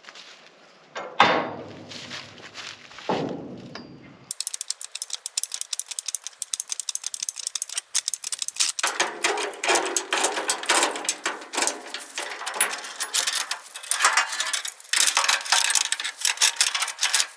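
Two sharp metal clanks, then rapid, continuous ratcheting clicks from a trailer's hand-worked mechanism as the trailer is set up.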